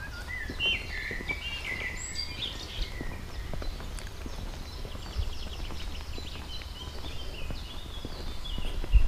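Songbirds singing, a running mix of short chirps and trills, over a steady low rumble and footsteps on a stony path, with a thump near the end.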